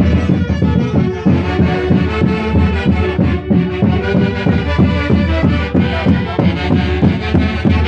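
Live music from a Huancayo orquesta: several melody instruments playing together over a steady dance beat.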